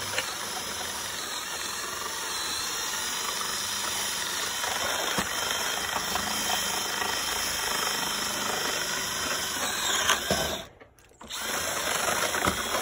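Cordless drill with a long bit boring a bolt hole into a thick wooden beam, running steadily. It stops briefly about ten and a half seconds in, then starts again and stops near the end.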